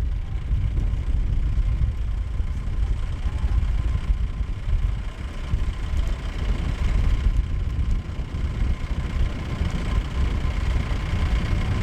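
Safari jeep driving along with its engine running, under a steady low rumble of wind buffeting the microphone.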